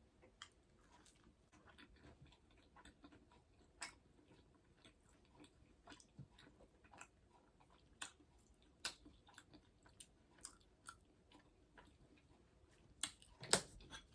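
Close-miked chewing of a breaded veggie corn dog: soft, irregular wet mouth clicks and light crunches, a little louder near the end.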